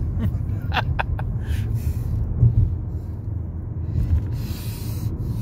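Steady low road and engine rumble inside a car's cabin at highway speed. A few short clicks come about a second in, and a brief hiss about four and a half seconds in.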